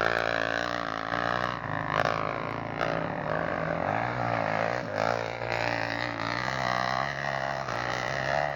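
Off-road motorcycle engine running steadily, its pitch wavering slightly up and down.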